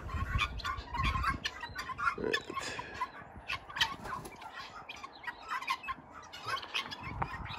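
A flock of chickens and guinea fowl clucking and calling, with many short scattered calls throughout and a lower, fuller call about two seconds in.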